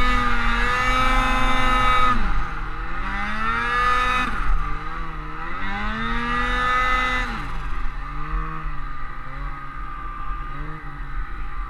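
Ski-Doo 850 Gen 4 two-stroke twin snowmobile engine with a Silber turbo, revving up and down as the sled is ridden through deep powder. It holds high revs for the first two seconds, then drops and climbs again twice before settling to lower revs with short blips near the end.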